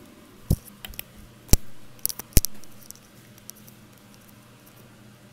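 Kitchen handling clatter: a few sharp clicks and knocks of objects being picked up or set down, the loudest about a second and a half and two and a half seconds in. They stop after about three seconds, leaving only a faint steady hum.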